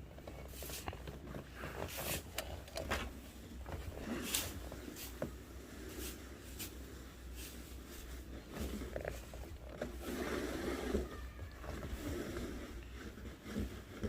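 Irregular crunches and scrapes in deep snow, with a steady low rumble underneath.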